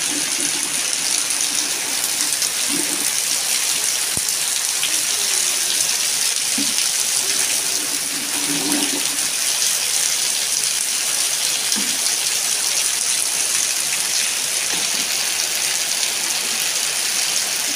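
Heavy rain falling steadily on wet concrete, with a stream of runoff pouring from above and splashing onto the ground.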